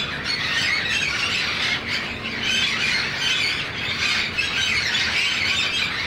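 A flock of wild parrots squawking and screeching without a break, many shrill calls overlapping into one continuous racket.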